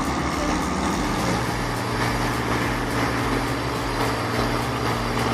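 A large engine running steadily under even load, a constant low hum with no change in pitch.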